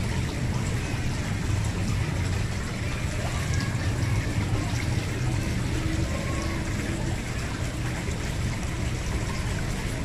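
Water steadily trickling and splashing into a koi pond, with a constant low rumble underneath.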